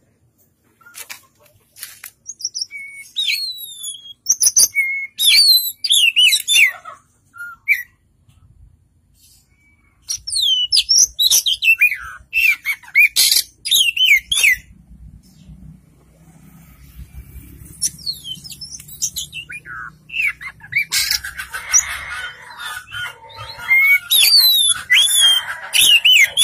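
Oriental magpie-robin (kacer) singing in loud bouts of sweeping whistles and sharp chirps, a varied, fast-changing song, in three bursts with short pauses between them.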